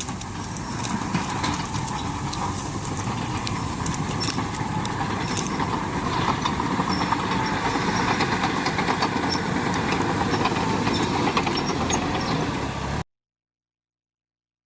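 Bulldozer clearing trees and brush: heavy engine and track noise mixed with many sharp cracks and clicks, cutting off suddenly near the end.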